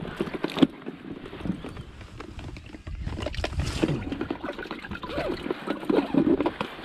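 Scattered knocks and shuffles of a person moving about on a wooden jetty deck, over an uneven low rumble of wind on the microphone.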